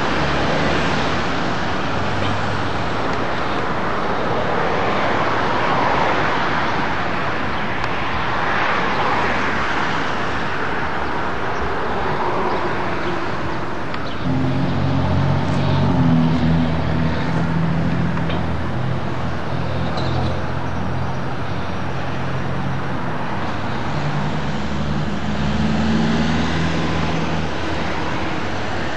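City street traffic noise, with vehicles passing in slow swells. About halfway through, a low steady drone comes in underneath.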